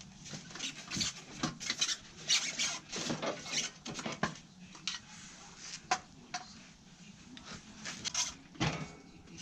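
A cardboard box and its packing being handled and pulled open: irregular rubbing, scraping and rustling with scattered short knocks.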